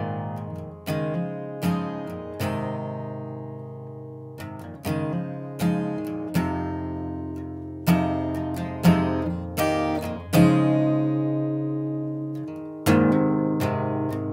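Background music: acoustic guitar picking slow, separate notes and chords, each one ringing out and fading before the next.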